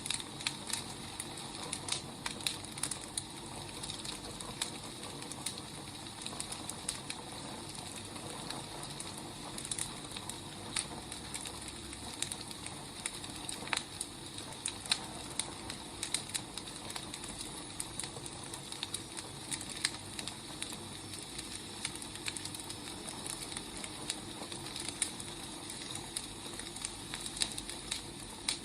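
Wood fire burning, crackling with irregular sharp pops over a steady hiss.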